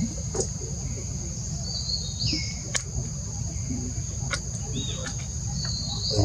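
Steady high-pitched drone of insects, with a few short chirps that fall in pitch and several sharp clicks.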